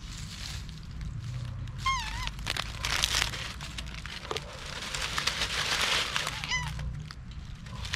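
Dry fallen leaves rustling and crackling as a baby macaque moves over and picks through them, with two short, wavering high-pitched calls, one about two seconds in and one near the end.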